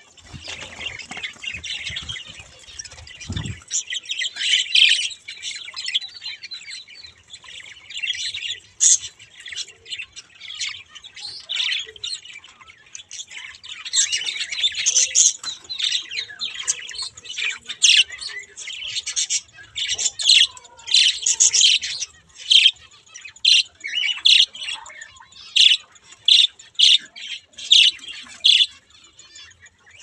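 Budgerigars chattering: a run of short, high chirps and squawks that comes thicker and louder about halfway through. A low rumble sits under the calls for the first few seconds.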